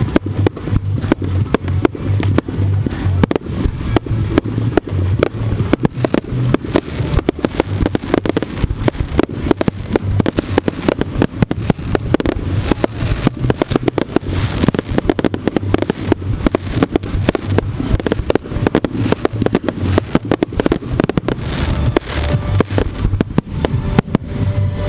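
Professional fireworks display firing a continuous rapid barrage: many sharp shots and crackling reports a second. Music with heavy bass notes plays underneath.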